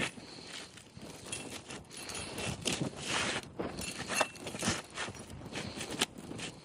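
Asphalt roof shingle being slid back into place under the course above: irregular scraping and rustling, with a few sharp knocks.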